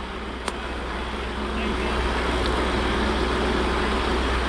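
Drag cars, a 2016 Mustang and a 2009 Cadillac CTS-V, idling at the starting line: a steady engine rumble that grows louder over the first couple of seconds and then holds. A single sharp click comes about half a second in.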